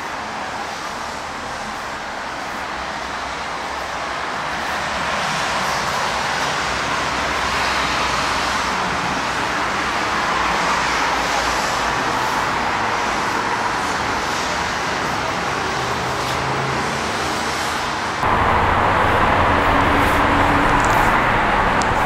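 A steady rush of road traffic noise that grows louder over the first few seconds, with a sudden step up and more low rumble about eighteen seconds in.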